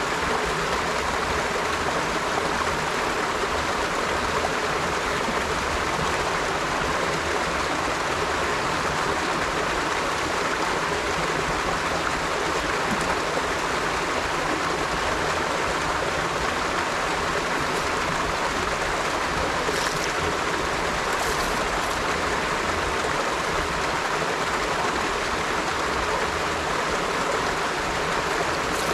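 A river flowing steadily: continuous rushing and burbling of running water.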